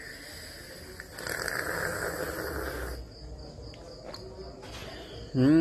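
A person slurping a sip of freshly brewed coffee: an airy drawn-in slurp lasting about two seconds, then a short voiced sound with falling pitch just before the end, the loudest moment. A steady high-pitched tone sits underneath.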